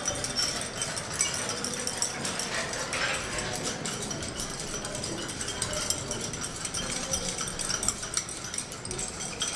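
Glass stirring rods clinking against small glass beakers as a salt is stirred into water to dissolve it: light, irregular clinks and ticks.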